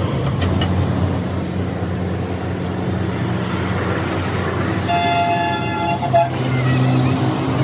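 Road traffic: a vehicle engine running steadily, with a horn sounding for about a second just past the middle.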